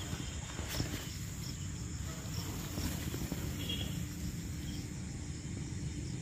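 Crickets chirping steadily in a night-time chorus, with a constant low rumble underneath.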